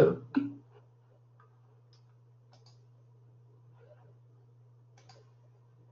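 Faint, scattered computer mouse clicks, a few single clicks and close pairs spread over several seconds, over a steady low electrical hum.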